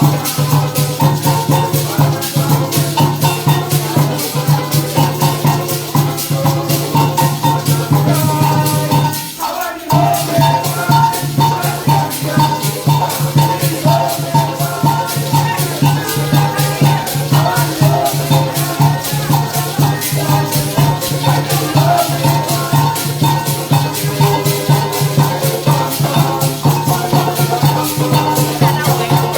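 Live parang band music, with shak-shak (maracas) shaking a quick, steady beat over pitched instruments. The music drops away for a moment about nine seconds in.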